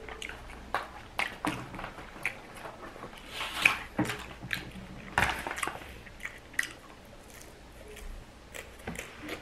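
Close-up chewing of loaded tortilla-chip nachos: a string of irregular sharp crunches, loudest a little past the middle.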